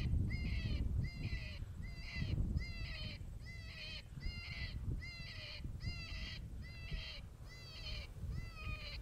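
Electronic predator caller playing a prey distress sound to lure in a coyote: short, high cries that rise then fall, repeated about one and a half times a second.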